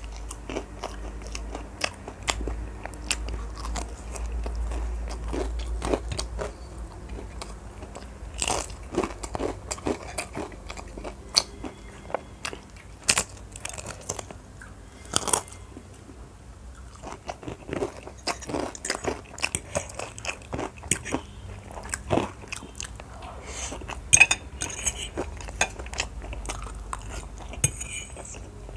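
Close-miked eating: a person biting and chewing crunchy food, with irregular sharp crunches between quieter chewing.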